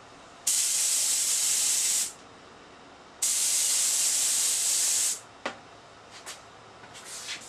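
HVLP spray gun on an air compressor spraying urethane finish: two even hissing passes of about two seconds each, a second apart. A few light knocks follow.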